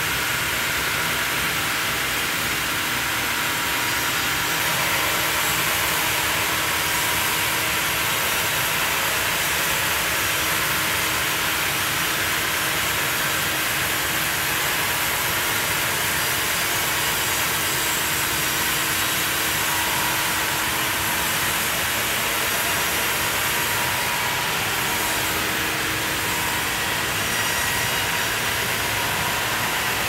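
Large sawmill band saw ripping lengthwise through a huge Japanese cedar (sugi) log as the log carriage feeds it along the track. The noise is steady and unbroken, with a constant hum under it.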